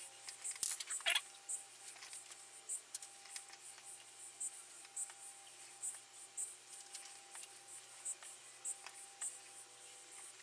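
Loose steel bearing balls clicking as they are dropped one by one into the drill press quill's bearing race: light, irregular metallic clicks about twice a second.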